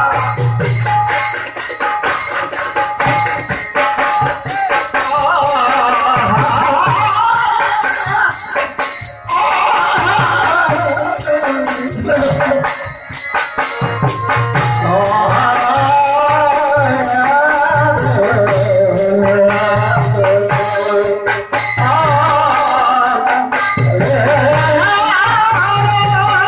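Live Marathi bharud folk music accompanying a gavlan dance: a wavering sung melody over fast, steady jingling percussion and a drum, playing without a break.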